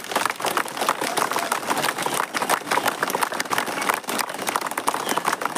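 A crowd clapping unevenly, many short sharp claps overlapping, with some chatter mixed in.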